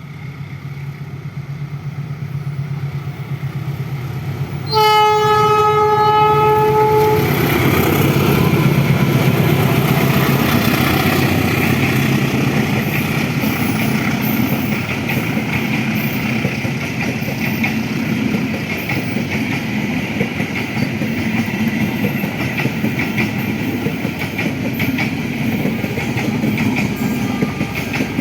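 A train approaches, its engine hum growing louder. About five seconds in it sounds one steady horn blast lasting a couple of seconds. Then it passes close by with loud wheel rumble and clickety-clack over the rail joints.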